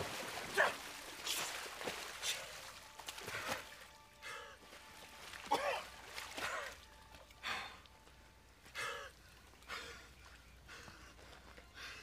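A man gasping and breathing hard, short strained voiced breaths about once a second, growing fainter.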